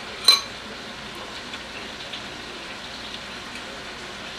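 Steady sizzle of fish frying in a pan, with one sharp clink of a metal spoon against a small glass bowl about a third of a second in.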